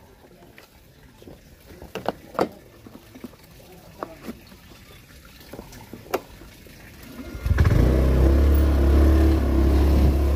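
Honda motor scooter engine pulling away and then running steadily, becoming loud about three quarters of the way in; before that only a few faint clicks.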